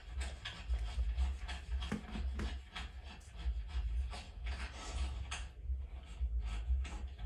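Soft rustling and rubbing, a quick run of short scrapes, over a steady low hum.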